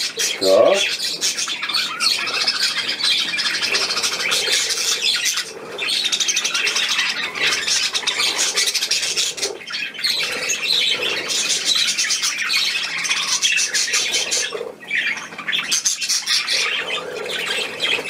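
A flock of budgerigars chattering and squawking, many birds at once in a dense, unbroken warble of rapid high calls.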